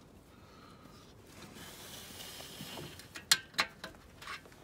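A soft rustling hiss, then a quick run of sharp metallic clicks and clinks, the first the loudest, as exhaust springs are worked on a snowmobile's exhaust in the engine bay.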